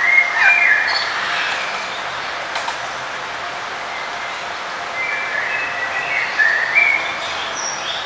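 Several songbirds chirping and calling in short high notes, busiest at the start and again in the second half, over a steady background hiss.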